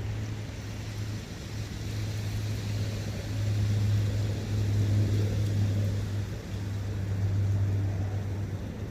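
A low, steady engine drone that swells louder around the middle and again near the end, over a faint steady hiss.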